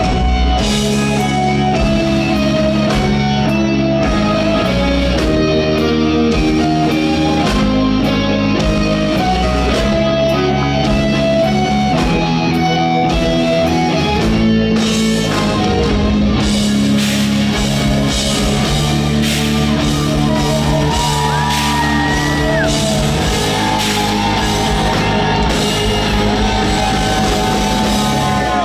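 Live rock band playing at concert volume, with electric guitars and drums. Over the second half a high lead line with pitch slides rides on top.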